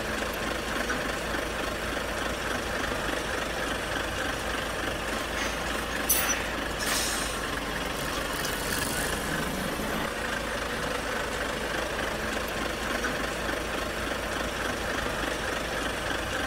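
Heavy truck engine idling steadily, with a few short hisses of released air about six to nine seconds in.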